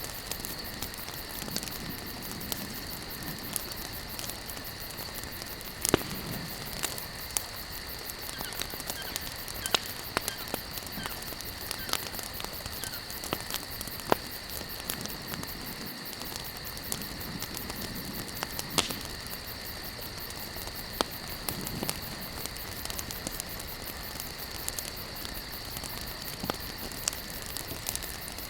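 Wood campfire crackling, with irregular sharp pops and snaps over a steady hiss of burning logs; two of the snaps are much louder than the rest. A steady high-pitched hum runs behind it.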